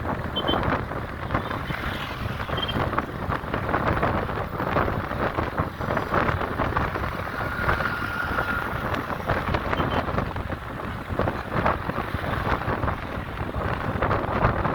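Road traffic noise with wind buffeting the microphone.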